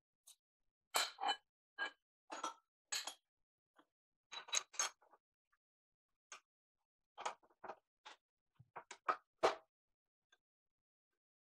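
Steel tooling being handled on a milling machine: short metallic clinks and knocks from the vise and the spindle, in small clusters of one to three taps with quiet gaps between. No motor is running.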